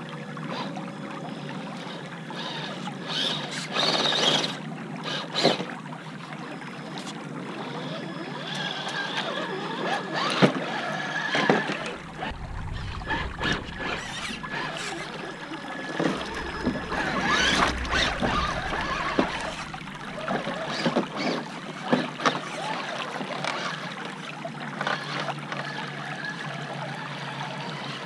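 Shallow creek water rippling over rocks, with a Traxxas TRX-4 RC crawler truck driving through it: a faint whine from its electric motor and scattered splashes and knocks as its tyres work over the rocks and roots.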